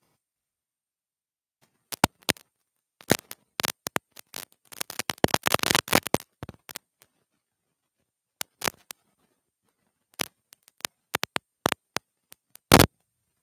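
Irregular sharp clicks and crackles, coming thick for a few seconds, then sparse, with one longer, louder one near the end.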